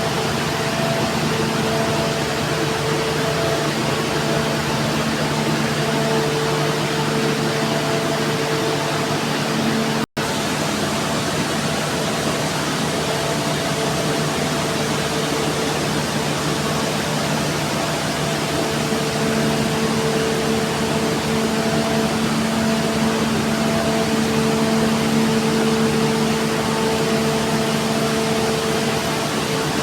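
Large machinery running steadily: an even, loud rush of noise with a low hum and a few steady tones on top. The sound cuts out for an instant about ten seconds in, then carries on unchanged.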